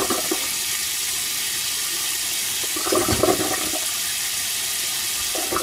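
Kitchen tap running steadily onto chunks of cooked daikon radish in a stainless-steel colander in a steel sink, cooling them under cold water.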